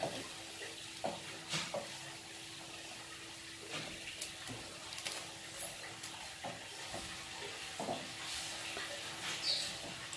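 Spatula stirring and scraping in a nonstick frying pan of simmering milk: scattered light scrapes and taps over a steady hiss.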